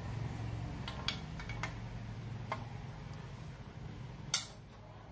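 Metal clicks and clinks from a headset press tool on a steel threaded rod through a bicycle head tube, used to seat the headset cups without a hammer: a few light ticks, then one sharp, ringing clink about four seconds in.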